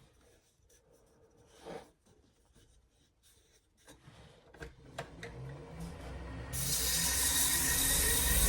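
Light handling sounds, small clicks and a brief scrape of wood or tools, then about two-thirds of the way in a power tool starts up with a steady, rising hiss.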